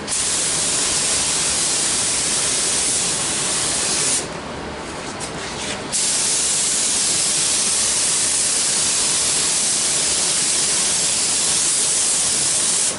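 Air-fed gravity-feed paint spray gun hissing steadily as it sprays paint. About four seconds in the trigger is let off for nearly two seconds, with a few short spurts, then the spray runs steadily again and stops at the very end.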